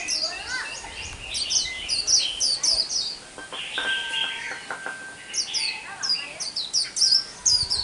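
A young white-eye singing its 'líu xù đầu' song: bursts of rapid, high, downward-slurred twittering notes.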